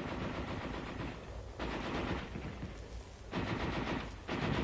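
Water-cooled .30 caliber Browning heavy machine gun fire in short bursts of about a second each with brief pauses between, a slowed rate of fire used to keep the enemy pinned down.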